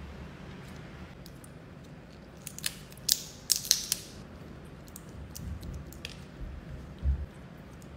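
Cooked crab shell being cracked and pulled apart by hand: a cluster of sharp crackling snaps a few seconds in, then lighter crackles, with a short dull thump near the end.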